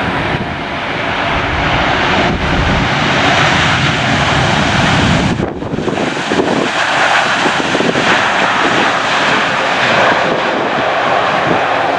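Airliner engines running as the plane comes in to land, growing louder over the first few seconds and then holding. Strong gusty wind buffets the microphone underneath.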